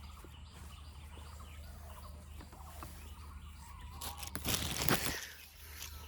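Forest ambience with faint birdsong, and a short, loud rustling burst about four and a half seconds in.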